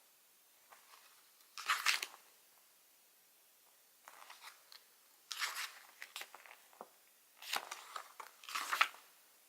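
Paper rustling and crinkling in short bursts as calendar and diary pages are handled and turned, with a brief burst about a second and a half in, another about five seconds in, and a longer cluster near the end.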